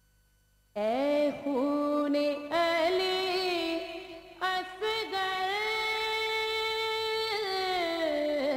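A woman singing a noha, a Shia lament, solo with no instruments, in long held notes that bend and waver in pitch. She comes in about a second in, out of near silence.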